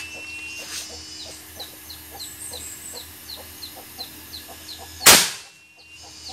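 PCP air rifle (Super King, Remington-series build) firing one shot about five seconds in: a single loud, sharp crack. The chronograph reads this shot at about 1240 fps. Short high chirps repeat evenly in the background.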